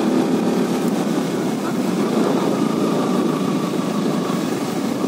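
KTM RC 125's single-cylinder 125 cc engine running steadily as the bike rides along, under a steady rushing noise.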